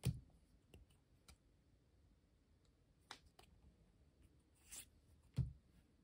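Trading cards being handled and flipped through: faint clicks and a short card slide, with two soft thumps, one at the start and one about five seconds in.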